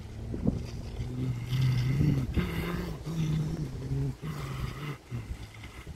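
A low voice humming without words, moving between short held notes.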